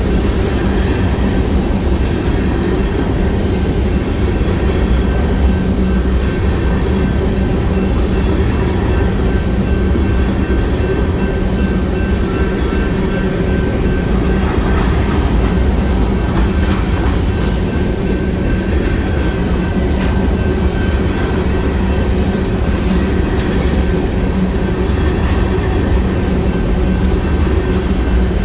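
BNSF covered hopper cars of a grain train rolling past at close range: a steady heavy rumble of steel wheels on rail, with a run of clacks over the rail joints about halfway through.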